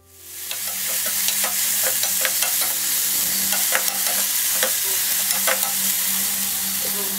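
Sliced onion, tomato, lentils and dried red chillies sizzling in oil in a steel pan as they are sautéed. A metal spoon stirs them with frequent irregular clicks and scrapes against the pan. The sizzle fades in over the first second, then holds steady.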